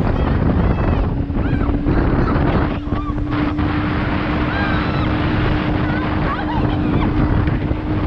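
Wind rushing over the microphone in an open cable car crossing a gorge, with a steady low hum that comes in about a second in and holds.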